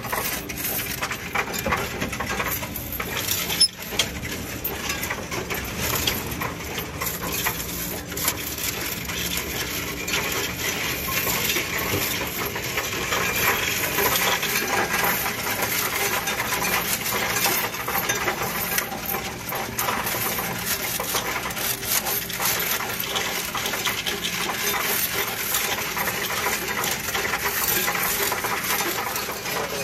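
Coins clattering continuously through a Coinstar coin-counting kiosk as it counts them: a steady, dense jingling of metal coins.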